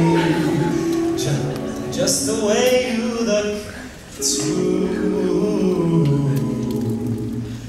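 All-male a cappella group singing, a solo voice over held backing chords, with a short break about four seconds in.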